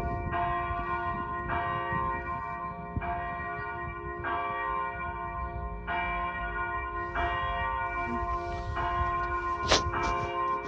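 Church bell tolling slowly, about eight strokes roughly one every one and a half seconds, each stroke ringing on until the next. A sharp click sounds about nine and a half seconds in.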